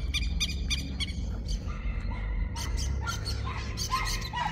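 Birds calling outdoors: a quick run of sharp, repeated chirps in the first second, then a few lower, falling calls near the end, over a steady low rumble.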